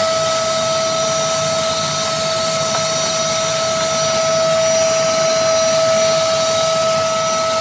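MAXELLPOWER 1000 W corded bagless cyclonic vacuum cleaner running steadily: a strong, steady high whine from the motor over a rushing hiss of air. The motor has been on for a while and is overheating, giving off smoke and a burning smell.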